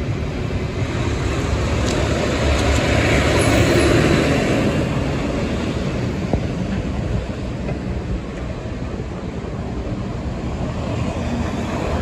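Heavy diesel hydro-vac (vacuum excavation) truck driving past, its engine and tyres swelling to loudest about three to four seconds in, then fading as it pulls away, with other street traffic around it.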